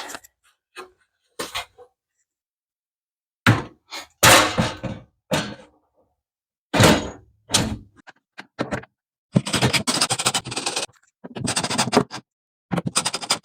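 Metal breaker-panel cover being fitted back onto the box: a series of separate thunks and scrapes, then quicker runs of rattling clicks near the end.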